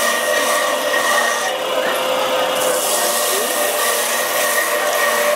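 Electric citrus juicer running with a steady motor whine, while orange halves are pressed onto the spinning reamer and the rind rasps against it. The rasping swells and eases as each half is pressed.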